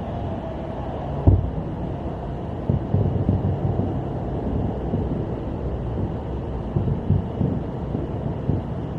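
Low, steady vehicle rumble of slow-moving traffic, heard from inside a car, with a sharp thump about a second in and a few lighter knocks after it.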